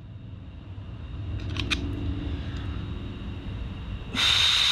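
A short, loud hiss lasting under a second near the end, as air or cleaner is blown through a boat's fuel-line check valve to clean its check ball. Before it, a few light clicks of the small part being handled over a low steady hum.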